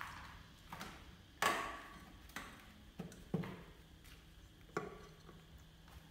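A string of about seven irregular knocks and taps on hard surfaces, each with a short echo; the loudest comes about a second and a half in.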